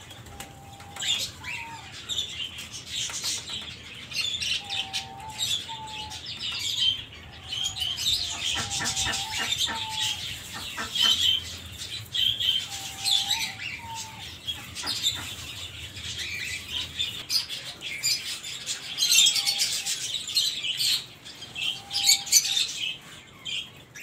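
Pigeons flapping their wings and pecking at seed scattered on a tiled floor, a run of quick irregular clicks and flutters. Short bird calls come in now and then.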